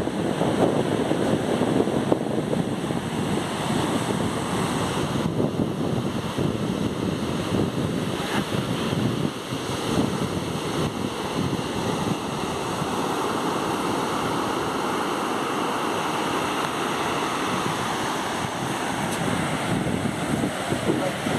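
Ocean surf breaking and washing up a sandy beach, a steady rush that swells for several seconds past the middle, with wind buffeting the microphone.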